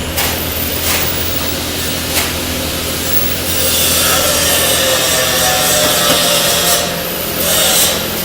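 Stick (shielded metal arc) welding arc crackling and hissing steadily as an electrode burns, growing louder about halfway through, over the low hum of the welding machine.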